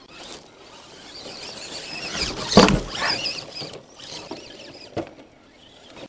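Electric motors and gears of RC rock crawlers whining high and wavering in pitch with the throttle, over scattered crackle of tyres and rocks; a brief loud thump about two and a half seconds in and a sharp click near five seconds.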